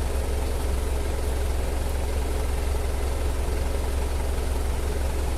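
Truck engine idling steadily at low idle, around 600 RPM, with the refrigeration system switched on: a constant low hum.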